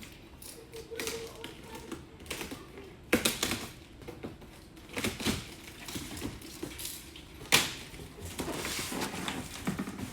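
Light, irregular clicking and tapping of hard objects being handled, with two sharper knocks, one about three seconds in and one about seven and a half seconds in.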